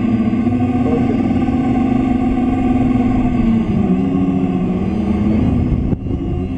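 Lada Niva's engine revving hard under load, its pitch dipping and climbing again about four seconds in, with a brief drop in sound just before the end.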